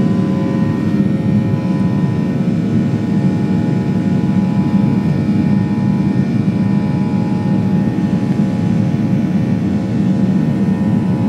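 Airliner jet engines running steadily during takeoff: a loud, even rumble with a few steady whining tones above it.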